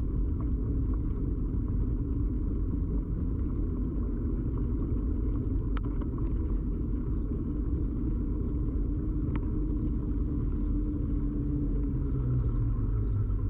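Steady rumble of a bicycle ride picked up through a camera fixed to the bike: tyre and frame vibration carried straight into the microphone, with two sharp clicks a few seconds apart.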